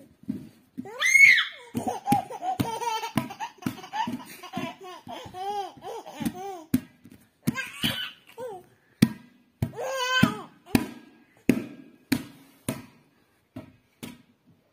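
A baby laughing in repeated bursts, with high squeals about a second in and again near ten seconds, over a run of short sharp pats or thumps. The laughter stops about twelve seconds in, leaving a few light taps.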